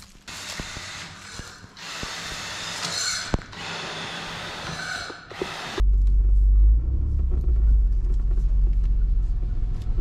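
Hissing, rustling noise with a few sharp clicks, then an abrupt change about six seconds in to the loud, uneven low rumble of a small vehicle being driven.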